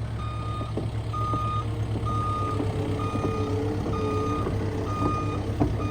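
Excavator's engine running steadily while its travel alarm beeps about once a second. A steady whine joins about halfway through.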